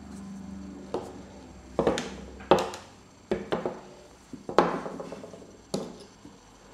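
Russian stiletto automatic knife being worked: a series of sharp metallic clicks and snaps from its blade mechanism, with two louder snaps about two and a half and four and a half seconds in.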